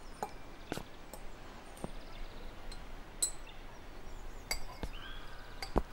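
Scattered light clinks and taps of dishes and glassware at a table, a few sharp ticks with brief ringing, the loudest knock near the end.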